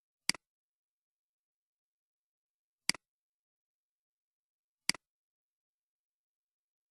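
Three computer mouse clicks a couple of seconds apart, each a sharp press followed at once by a softer release click, with dead silence between.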